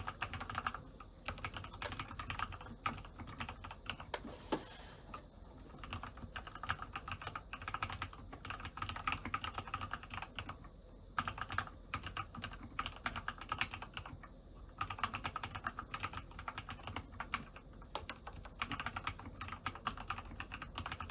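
Typing on a Corsair K65 LUX RGB TKL mechanical keyboard with Cherry MX Red linear switches lubed with Super Lube grease spray and stock doubleshot ABS keycaps. The key presses come fast and continuously, with a few short pauses.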